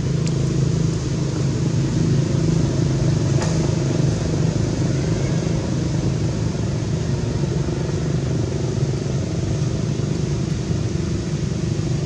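Steady low rumble of an engine running at an even speed, with a faint tick about three and a half seconds in.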